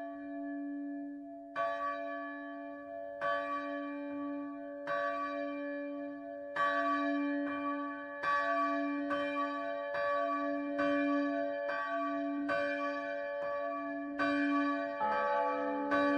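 A bell tolling in slow, even strokes, about one every second and a half to two seconds, each stroke ringing on into the next. Near the end the tone changes as a different-pitched stroke sounds.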